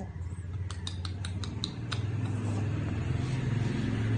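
A steady low motor hum that grows louder about halfway through. In the first two seconds there is a quick run of about eight light clicks.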